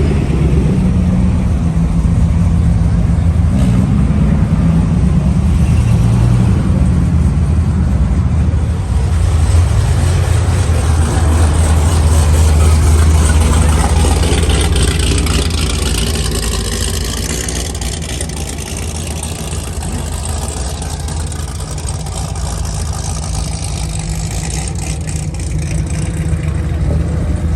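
A car engine running steadily with a deep low hum, which strengthens about a third of the way in, followed by a spell of higher hiss.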